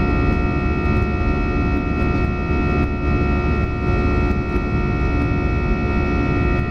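Airbus A319 jet engine and airflow heard inside the cabin during the climb after take-off: a steady whine of several held tones over a deep rumble.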